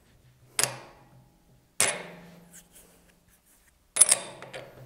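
Steel spacer collar clinking against the steel cutter arbor of a horizontal milling machine as it is handled and slid on: three sharp metallic clinks, each ringing briefly.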